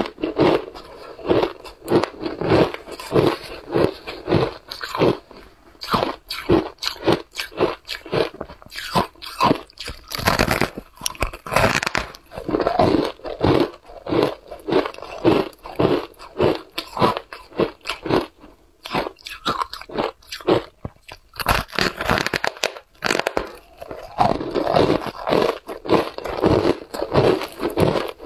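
Packed shaved ice coated in matcha powder being bitten and chewed: a rapid run of crisp, icy crunches, with a couple of short lulls about two-thirds of the way through.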